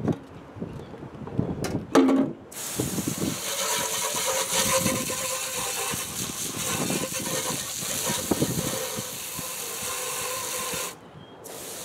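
A garden hose spray nozzle blasting water into an engine oil pan on asphalt, rinsing metal shavings out of it. It sounds as a loud, steady hiss of spray hitting metal that starts about two and a half seconds in and cuts off sharply near the end, with a short final burst. Before the spray there are a few knocks as the pan is set down.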